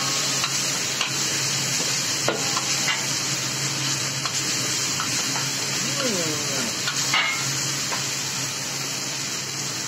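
Spice paste sizzling steadily in hot oil in a stainless steel wok while a metal ladle stirs it, scraping and clicking against the wok now and then.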